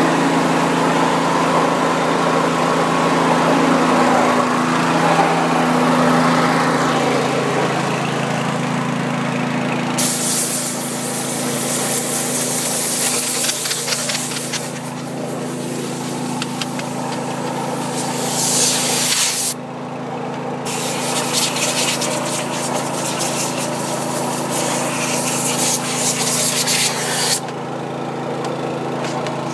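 Small engine running steadily, with a loud hiss of water spray starting about a third of the way in, breaking off for a moment near two thirds and stopping shortly before the end.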